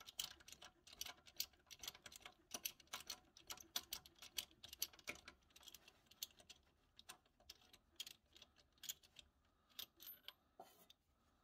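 Socket ratchet wrench clicking as it is swung back and forth on a bolt, in quick runs of small ticks; the clicks thin out after about six seconds.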